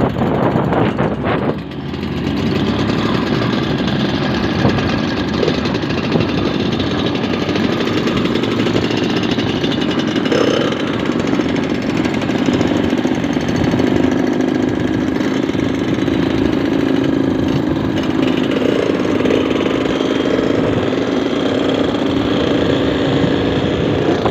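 Yamaha RX-King two-stroke motorcycle running under way, its exhaust with the throaty 'ngorok' (snoring) note. It eases off briefly about two seconds in, then runs steadily.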